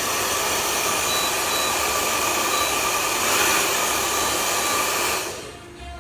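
Steady rush of air from a blower nozzle played over the iPhone X logic board to cool it after heating, with a faint whine in it, cutting off about five seconds in.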